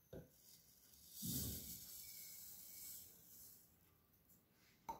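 Granulated sugar poured from a glass bowl into a blender beaker onto an egg, a soft hiss for about two seconds.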